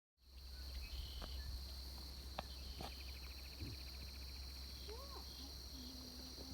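Insects droning steadily in the background, with a rapid pulsing insect trill that starts about three seconds in. A few short bird calls and a low rumble run underneath.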